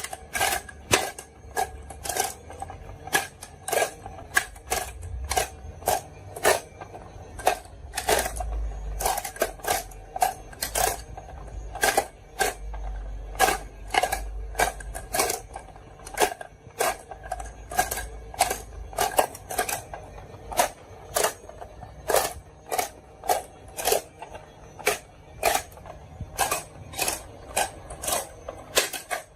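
Marbles rolling and clacking down a HABA marble run: a rapid, irregular stream of sharp clicks with a short ring, over a low rolling rumble.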